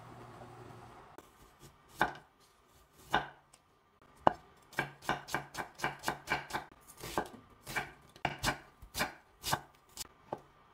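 Kitchen knife cutting carrot and king oyster mushroom on a wooden cutting board. Two single knife strikes come about two and three seconds in, then a quick run of cuts, about three a second, with the blade knocking the board on each stroke.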